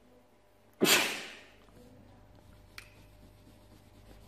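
A short, sharp puff of breath close to the microphone about a second in, loud and fading over about half a second, then a single light tap about two seconds later.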